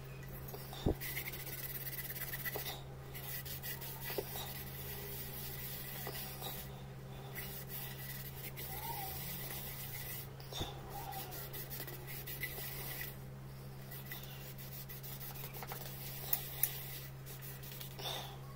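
Cloth rubbing the inside of a copper bowl to polish off tarnish, a steady scrubbing sound broken by short pauses every few seconds, with a few sharp clicks.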